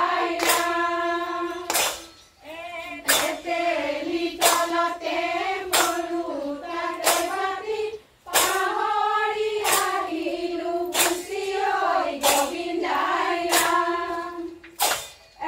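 A women's group singing an Assamese Husori (Bihu carol) song together, with a sharp hand clap in unison roughly every second and a third. The singing drops out briefly twice, about two and eight seconds in.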